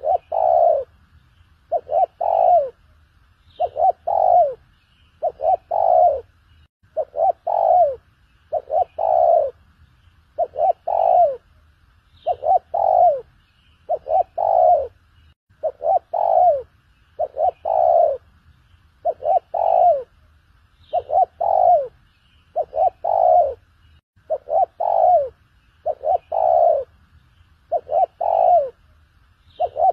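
Spotted dove cooing: a short phrase of coos, the last note falling in pitch, repeated steadily about every second and three quarters.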